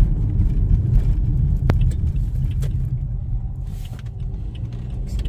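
Car driving, heard from inside the cabin: a steady low road and engine rumble, with one sharp click about a second and a half in.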